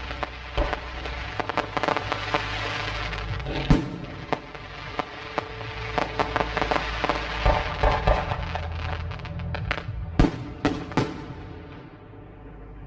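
Fireworks exploding: a string of sharp bangs and crackling reports, thickest in the middle and with a few loud bangs near the end, over music playing underneath.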